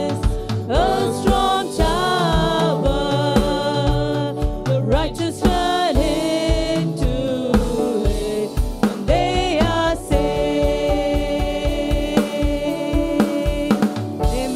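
Gospel praise-and-worship song: women singing together into microphones over musical accompaniment with a steady beat.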